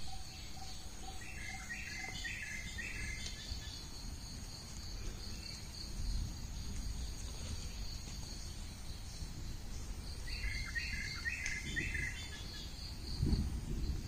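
Countryside ambience: a steady high insect drone, with a songbird singing a short phrase of quick repeated notes about a second in and again around ten seconds.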